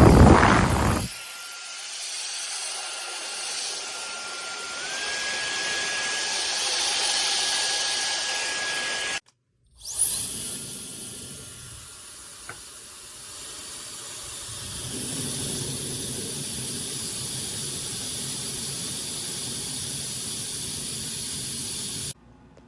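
High-speed brushless hair dryer running: a steady rush of air with a thin high motor whine that steps up in pitch about five seconds in. A loud low rumble comes in the first second. After a brief break the dryer starts again with a rising whine and runs steadily.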